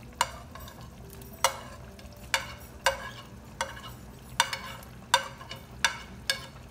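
A fork clinking against a ceramic plate while sliced carrots are scraped off into the soup pot: about nine sharp, irregular clicks, each ringing briefly.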